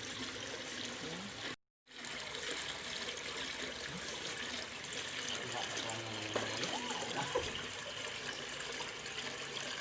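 Steady trickle of running water, breaking off for a moment about two seconds in, with faint voices in the background.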